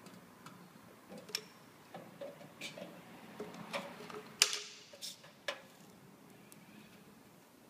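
Light clicks and knocks as a caulking gun is worked to run sealant around a downpipe pop in a metal gutter. A louder clatter about four and a half seconds in comes as the gun is set down on the concrete floor, followed by a few lighter knocks.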